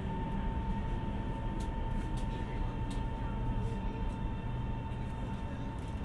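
Steady running noise heard inside a CSR Zhuzhou-built B2-series metro car: a low rumble with a steady high-pitched tone over it and a few faint clicks.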